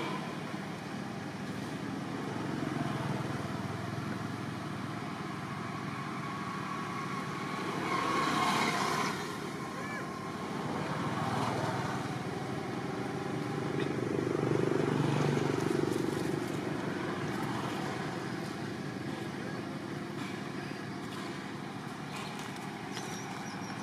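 Outdoor background of motor traffic, a steady hum whose engine noise swells twice as vehicles pass, with faint distant voices.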